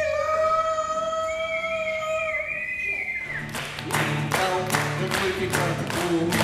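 Live song: a long held note for the first three seconds, then an acoustic guitar comes in with a brisk rhythmic strum, about four strokes a second, and children clap along.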